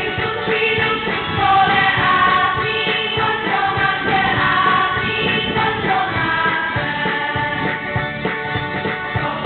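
A choir of girls and women singing a song together, holding each note briefly before moving to the next.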